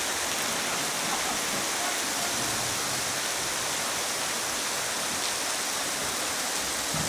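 Steady rain falling on a paved street, an even hiss of many drops.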